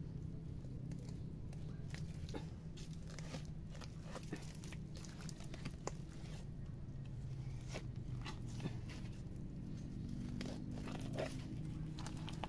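Digging into wet mangrove mud after burrowing mangrove clams: irregular crunches and clicks of mud, roots and shell, over a steady low hum.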